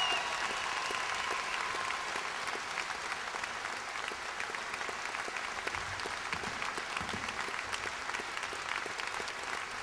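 Concert audience applauding steadily, a dense patter of many hands clapping. A few held tones from the song's end fade out in the first two seconds.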